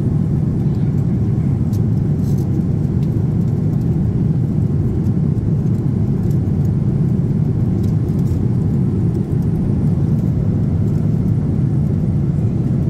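Steady low rumble of cabin noise inside a Boeing 787-10 airliner at cruise. A few faint ticks sound over it.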